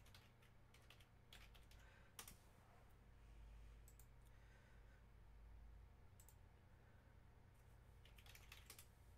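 Faint computer keyboard keystrokes and mouse clicks, scattered and sparse, with a quick run of keystrokes near the end, over a steady low hum.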